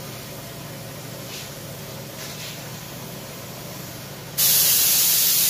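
Compressed air spray gun hissing as the trigger is pulled about four seconds in, spraying candy red paint at about 1.5 bar. The hiss starts suddenly and holds loud and steady.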